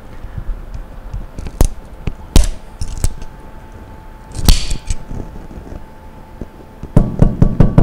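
Screwdriver prying and scraping at the stationary seal seat and rubber boot seated in the pump's cover plate around the shaft: a few sharp metal-on-metal clicks with a short scrape, then a quick series of knocks near the end, as the brittle seat is chipped and broken out.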